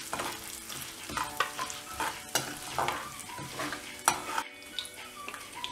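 Metal slotted spatula stirring and scraping chana dal, urad dal and dry red chillies as they fry in hot oil in a kadai, with steady sizzling and sharper scrapes against the pan about once a second. The lentils are being browned in the oil for the tempering.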